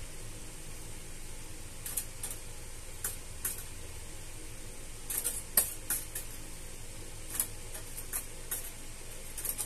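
Light, irregular clicks and taps of a kitten's claws catching on an open umbrella's fabric canopy and shaft as it paws at it, over a steady background hiss. The loudest tap comes about halfway through.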